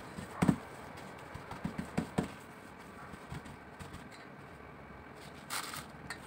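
Kitchen paper towel dabbed and pressed onto raw minced pork and beef in a stainless steel bowl, blotting the excess blood: a few soft taps and faint rustling, with a brief paper rustle about five and a half seconds in.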